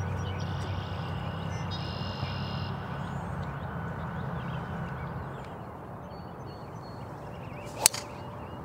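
A steady low hum fades out about halfway through; near the end comes one sharp crack of a golf club striking a ball off the tee.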